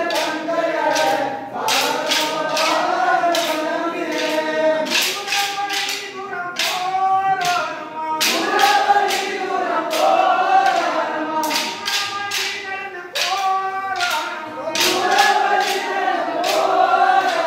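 A group of men sing a kolattam folk song in chorus while short wooden kolattam sticks are clacked together in time. The clacks come in quick rhythmic runs of several per second over the singing.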